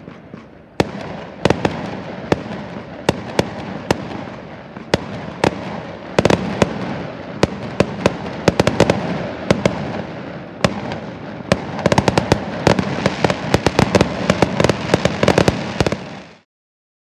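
A fireworks display: a string of sharp bangs and crackles over a continuous echoing rumble. They come thicker about six seconds in and densest near the end, then cut off suddenly.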